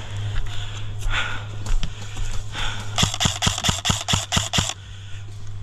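Airsoft gun firing a quick string of about nine shots, about five a second, around the middle, with a few scattered clicks before it. A steady low hum runs underneath.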